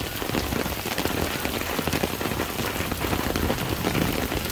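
Steady rain falling, with many individual drops striking close by.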